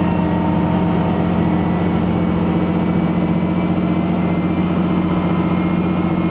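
Diesel railcar running, heard from inside the passenger car: a steady, loud drone of the engine and running gear, with a few faint whines that rise slowly.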